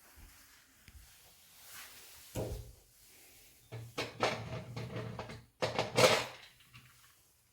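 Handling sounds of a toiletry bag being closed and moved: a knock, then a stretch of sliding and scraping, and two sharper knocks near the end, the second the loudest.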